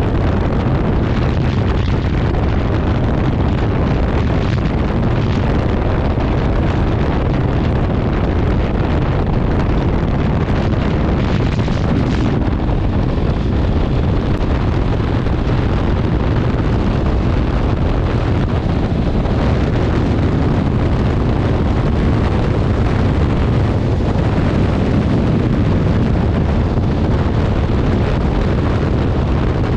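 Honda CB650R inline-four motorcycle engine running steadily on the move, mixed with heavy wind noise on the microphone.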